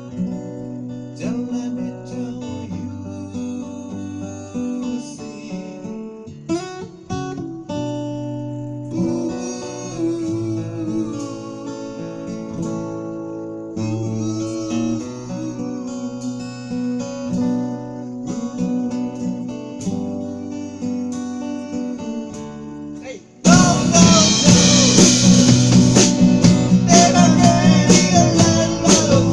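Band playing a guitar-led cover of a pop song, strummed acoustic guitar over bass. About 23 seconds in the music suddenly gets much louder and fuller.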